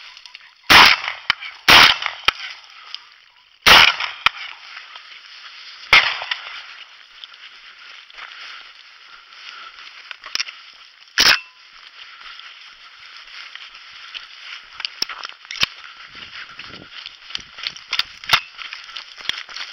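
Shotgun shots at flushing pheasants: two quick shots about a second apart, a third about two seconds later, another a couple of seconds after that, and a last one some five seconds on. A steady hiss runs underneath.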